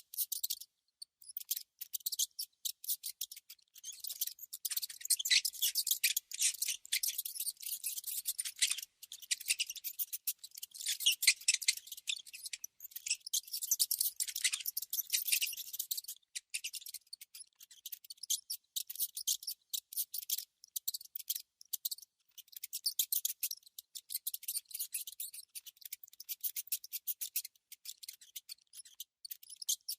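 Mouse scratching and nibbling: rapid, dry, high-pitched clicks and scratches in dense flurries, broken by short pauses.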